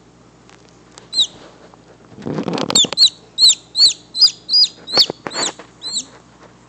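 A baby chick peeping loudly while held in cupped hands: one lone peep about a second in, then a run of shrill, short falling peeps, about three a second, from near the middle until close to the end. A brief rustle of handling comes just before the run starts.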